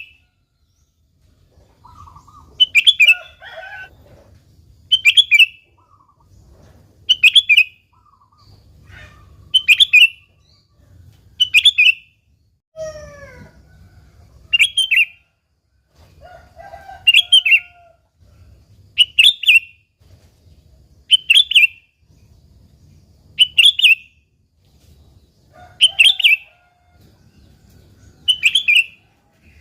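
Sooty-headed bulbul calling in short, bright, repeated phrases, about one every two seconds, with fainter, lower calls in between.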